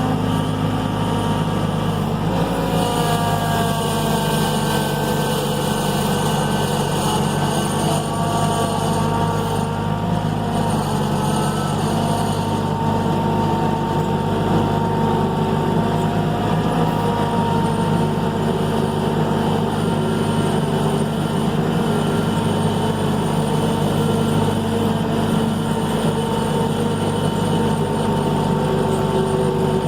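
Skid steer engine running steadily, with a whine that glides up and down in pitch and small shifts in engine speed a few times.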